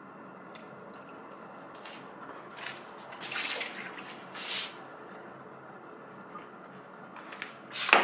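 Kitchen tap run in two short bursts as a ceramic bowl is rinsed at the sink, then the bowl set down on the counter with a sharp clatter near the end.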